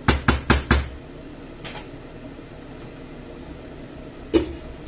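A wooden spoon tapped four times in quick succession on the rim of a frying pan, then a glass pan lid set down on the pan with a single knock about four seconds later.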